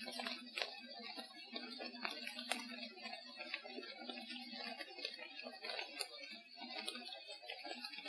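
Irregular sharp clicks and small cracks over a steady hiss, with a low steady hum through the first three seconds. The recordist takes the clicks for Sasquatch chewing on sticks and stripping bark.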